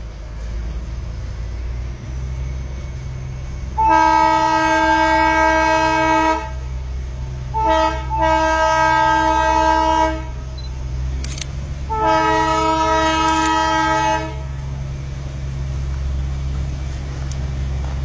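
Train horn sounding three long blasts of about two to two and a half seconds each, the second briefly broken just after it starts, from a narrow-gauge train reversing after switching line. A steady low engine rumble runs underneath.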